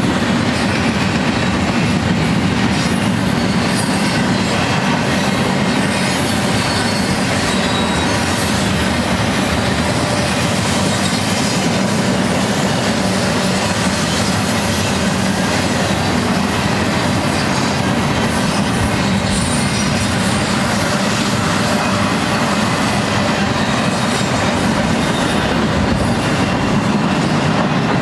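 Double-stack intermodal freight train's well cars rolling past: a steady rumble and clatter of steel wheels on rail, with a faint high wheel squeal now and then.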